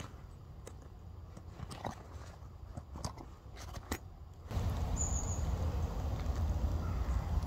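Faint, scattered clicks and rustles from the heavy-duty zip and nylon fabric of a British Army PLCE Bergen side pocket being worked by hand. About four and a half seconds in, a sudden steady low rumble takes over.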